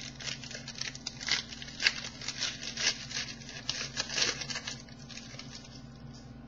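Irregular crinkling and rustling of trading cards and their plastic or foil packaging being handled. It is busiest over the first four seconds or so, then dies down.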